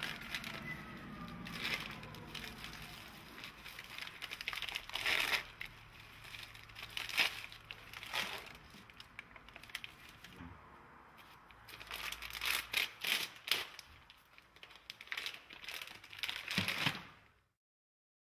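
Plastic medical packaging rustling and crinkling in irregular bursts as an IV giving set is unwrapped and laid onto a paper sterile field. The sound cuts off abruptly near the end.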